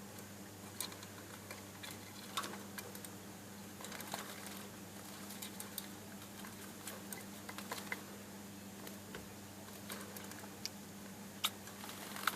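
Budgerigars bathing: light, irregular pattering and small splashing taps of water, with occasional sharper clicks, over a steady low hum.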